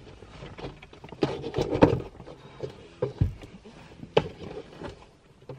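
Scattered light knocks and clicks of a Toyota GT86 centre-console armrest being handled and its padded lid swung open. There is a busier run of knocks about a second and a half in and one sharp click about four seconds in.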